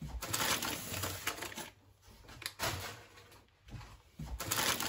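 Handling noise in three bursts of rustling and light clatter, the longest at the start, a short one in the middle and another near the end.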